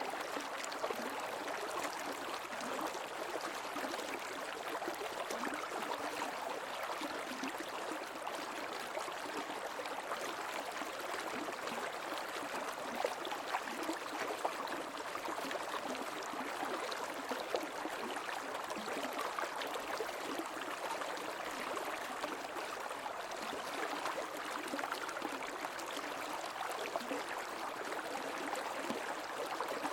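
Creek water flowing: a steady, even rush with fine irregular splashing.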